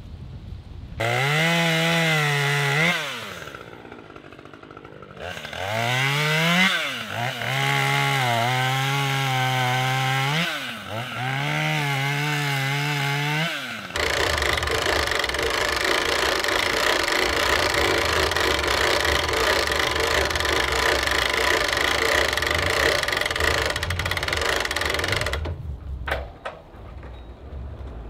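A vehicle engine revving up and down in several pulls as it drags a log over the ground. About halfway through, the sound changes abruptly to a small saw engine running steadily at high speed, which stops near the end.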